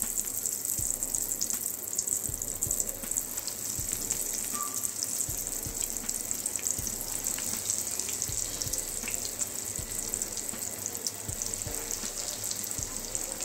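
Hot oil sizzling steadily with small crackles around breadcrumb-coated spinach kababs deep-frying in a pan, as more kababs are lowered into the oil.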